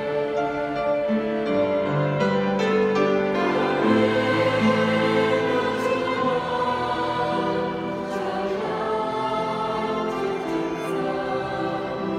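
Mixed choir of men's and women's voices singing in parts, with long held notes that move together from chord to chord.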